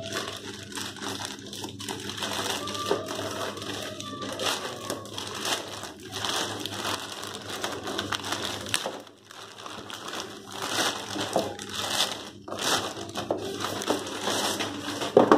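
Plastic courier mailer bag crinkling and tearing as it is pulled open by hand, with dense irregular crackles, and a louder knock just before the end.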